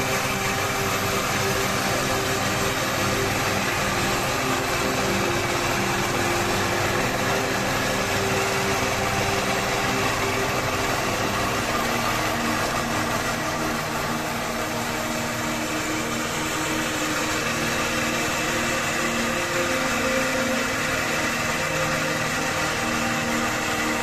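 A machine engine running steadily, with a continuous noisy whir over it and no let-up.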